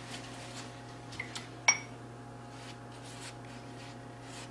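Cooking brush dabbing egg glaze onto bread dough in soft, repeated strokes, with a few small taps about a second in and one sharp ringing clink of dishware midway. A steady low hum runs underneath.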